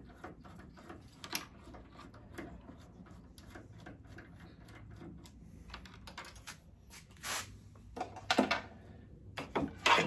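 Light, irregular clicks and ticks of a screwdriver backing screws out of a mini-split indoor unit's plastic fan-motor housing, with small parts being handled. A few louder knocks come in the last few seconds.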